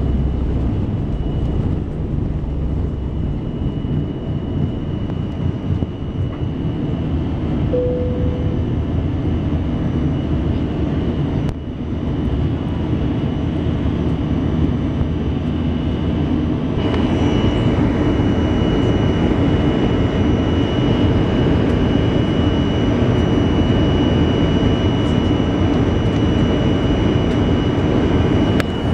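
Airbus A319 jet engines heard from inside the cabin: a steady rumble with a thin high whine. About halfway through the engines get louder and a second, higher whine joins, as they spool up for the takeoff roll. A brief short tone sounds near the start.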